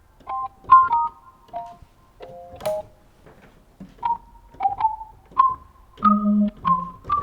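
Hammond organ played with a plinky plonky setting: a melody of short, quickly decaying staccato notes, with a fuller chord that has a low note near the end.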